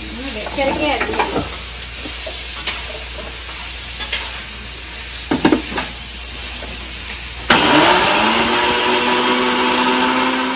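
Electric mixer grinder (Indian mixie) switched on about three-quarters of the way in, its motor running loud and steady with a hum and whine as it grinds dry-roasted whole spices (coriander, cumin, black pepper, dried red chillies) to powder. Before that, a few clicks and knocks as the steel jar is set on the base and the lid fitted.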